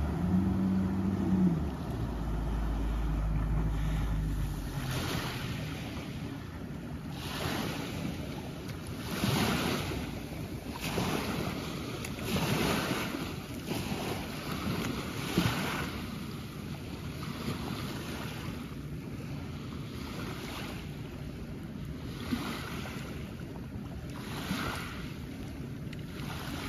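Small waves washing onto a gravel shore, one swell every second or two, with wind buffeting the microphone. A Yamaha F70 four-stroke outboard's hum fades out in the first couple of seconds as the boat slows.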